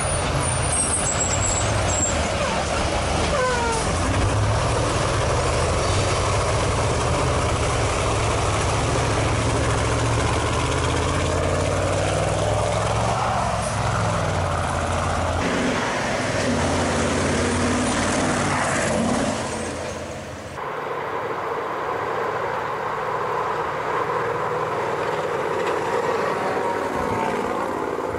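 Heavy off-road rally trucks driving on a sandy forest track, their diesel engines running hard with a deep rumble and changing revs. The engine noise drops abruptly about two-thirds through, then another truck is heard approaching and passing.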